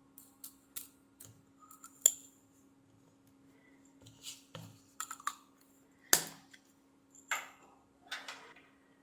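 Small hard tools or parts clicking, tapping and scraping on a workbench in a string of irregular knocks, the loudest about two seconds in and about six seconds in, over a faint steady electrical hum.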